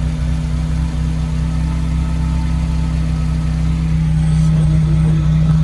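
Toyota Celica's four-cylinder engine idling steadily through an aftermarket stainless steel cat-back exhaust. There is no leak apparent at the joint, which was fitted with the OEM gasket but no washers on its bolts.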